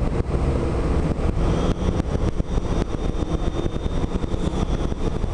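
Cabin noise inside a 2005 Gillig Phantom transit bus: the low rumble of its Cummins ISM diesel, with steady rattling and knocks from the interior fittings. A faint high whine joins for a few seconds about two seconds in.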